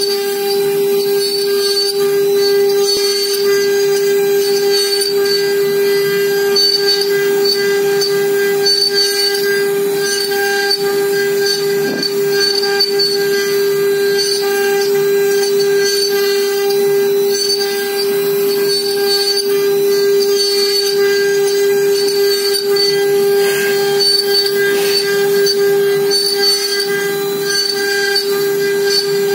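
CNC router spindle whining steadily at high speed as its small carving bit cuts a relief into a wooden panel. It is one unbroken high tone with fainter overtones above it.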